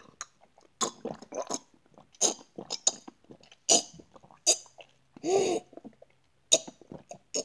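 A person gulping water from a glass in a run of quick, noisy swallows, acted out as someone desperately thirsty. A short vocal sound breaks in about five seconds in.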